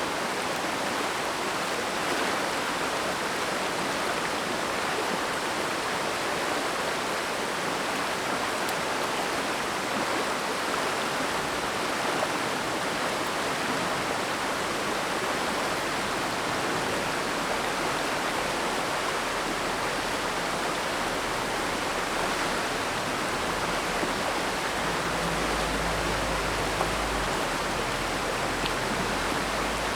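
Mountain stream rushing over rocks: a steady, even rush of water. A low rumble comes and goes in the last few seconds.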